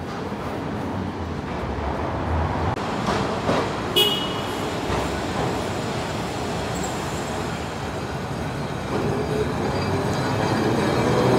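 Vintage Milan tram of the Ventotto type approaching and passing on its rails, its running noise swelling with a rising hum over the last couple of seconds. A brief high ring cuts through about four seconds in, over steady street noise.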